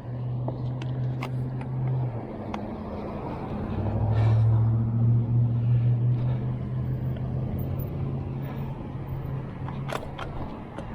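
A motor vehicle's engine running nearby: a steady low hum that grows louder about four seconds in, then slowly fades. There are a few scattered light clicks along with it.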